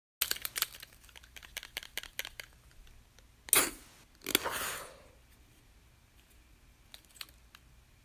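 Asthma inhaler: a run of quick clicks, then one short sharp puff of spray followed by a longer, softer hiss that trails off. Two faint clicks come near the end.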